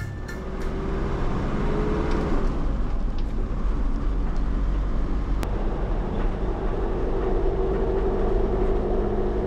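Mercedes-Benz Sprinter 313 CDI's OM611 four-cylinder turbodiesel running on the road, heard from inside the cab with tyre and road noise. Its note climbs and then drops about two seconds in.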